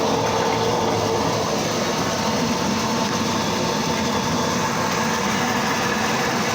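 Steady mechanical running noise, an even rumble with a faint steady hum, unchanging throughout.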